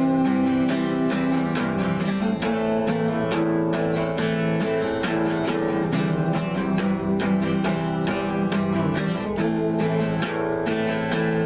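Instrumental break in a folk-style song: acoustic guitar strummed in a steady rhythm with sustained chords, no vocals.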